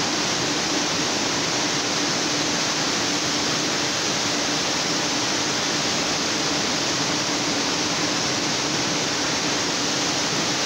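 Indoor pool hall ambience: a steady, even rush of running water, with a low steady hum underneath.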